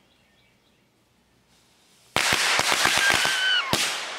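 A string of firecrackers going off about two seconds in: a rapid run of about ten sharp cracks in a second and a half, ending in a louder bang, with a hissing crackle behind them.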